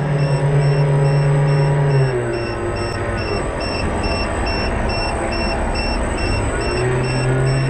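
Motor whine of a radio-controlled model catamaran ferry, picked up by its onboard camera: a steady hum that drops in pitch about two seconds in as the throttle eases, then climbs back near the end. A faint high beep repeats about twice a second throughout.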